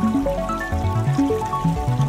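Ambient electronic music: quick runs of short pitched notes climbing in pitch over a low, steady bass drone.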